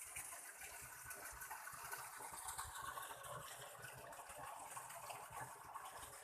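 Waterfall: falling water rushing in a steady, faint hiss.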